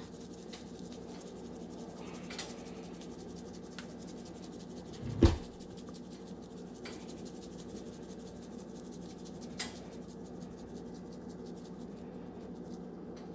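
Seasoning shaken from a spice shaker onto fish fillets: faint rubbing and tapping, with a sharp knock about five seconds in, over a steady low hum.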